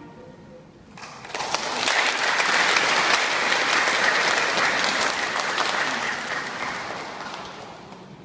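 Audience applauding: the clapping starts about a second in, swells, then gradually dies away near the end.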